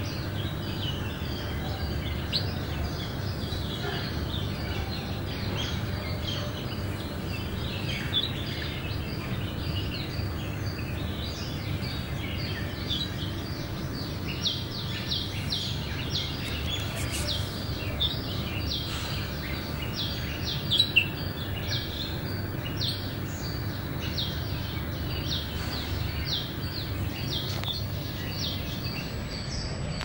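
Small birds chirping, short high chirps that grow frequent and rapid from about halfway on, over a steady low background rumble. There are a couple of sharper, louder ticks about two-thirds of the way through.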